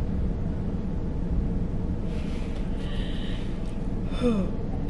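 A woman yawning: a long breathy intake and release of breath about two seconds in, ending in a short falling voiced sound, over a steady low rumble in the car.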